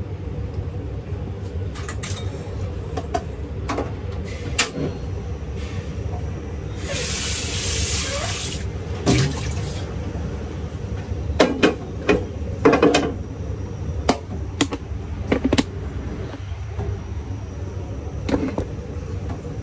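Kitchen tap running into a steel sink for about two seconds as a frying pan is rinsed. The pan and other utensils clatter and knock against the sink several times, with a steady low hum underneath.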